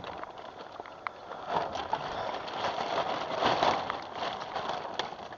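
Steady hiss of rain falling around a small boat, with scattered light knocks and clicks.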